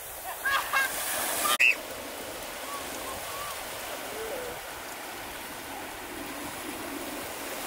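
Steady rushing noise of water, with a few short, distant voices or calls in the first second and a half and a sharp click about a second and a half in.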